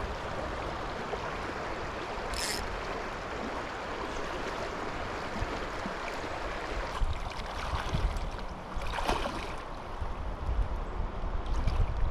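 Flowing river water: a steady rush of current, with low uneven rumbles on the microphone in the second half.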